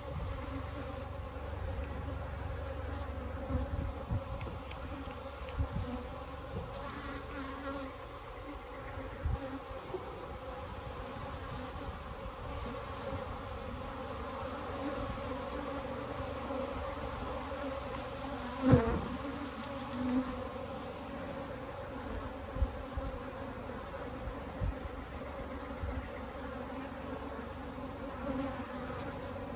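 Africanized hybrid honeybees buzzing steadily in a dense mass around an opened hive, with scattered knocks from the hive equipment being handled. One sharp knock about two-thirds of the way through is the loudest sound.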